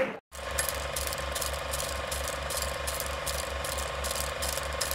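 Old film projector sound effect: a steady, even mechanical clatter of about five clicks a second, starting a moment in after a brief gap.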